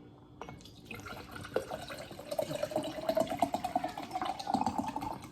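Water being poured into a chilled mug, gurgling with a pitch that rises steadily as the mug fills.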